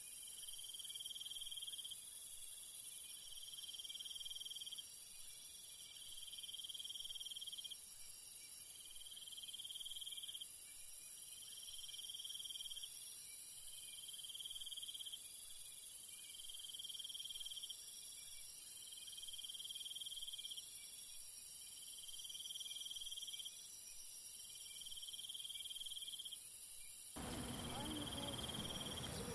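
Summer grass insects such as crickets calling: a steady high-pitched chorus, over which one insect repeats a buzzing call of about a second roughly every one and a half seconds. A broad hiss comes in near the end.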